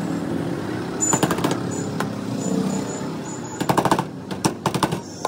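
Hands patting and slapping a ball of dough flat on a board, in quick runs of taps: one about a second in and two more near the end.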